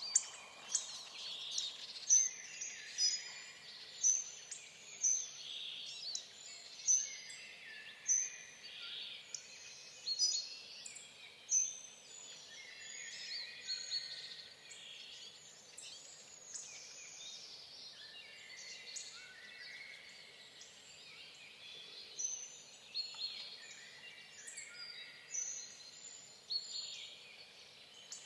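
Several songbirds chirping and singing together, with sharp high chip notes about once a second through the first half and warbling phrases throughout.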